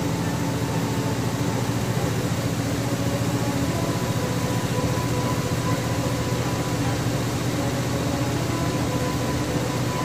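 Hitachi BeatWash 8 kg washing machine running: a steady motor hum over an even rushing noise, with a few faint held tones.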